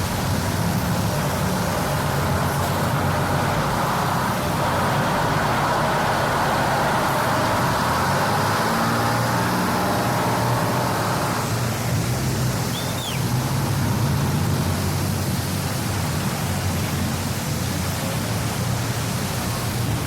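Motor vehicle engines running steadily with road traffic noise; a rushing hiss fades out about eleven seconds in.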